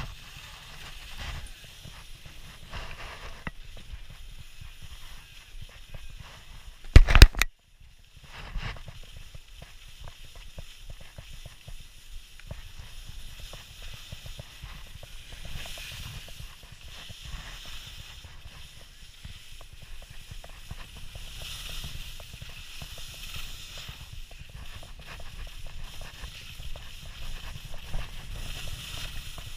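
Skis sliding and scraping over packed snow on a downhill run, with wind rumbling on the camera's microphone. About seven seconds in there is a very loud knock on the camera, then the sound cuts out for a moment.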